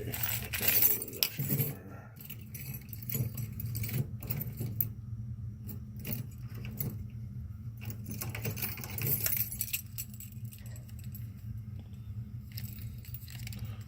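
Metal hand tools clinking and rattling against each other in a tool box drawer, in scattered bursts, over a steady low hum.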